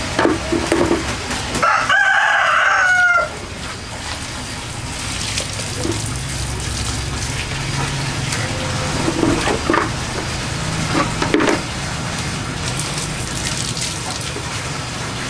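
A rooster crowing once about two seconds in: a single call of about a second and a half that drops in pitch at the end. After it comes a low steady background with a few light knocks.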